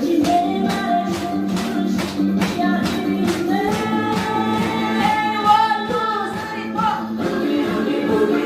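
Upbeat song with singing over a steady, quick beat.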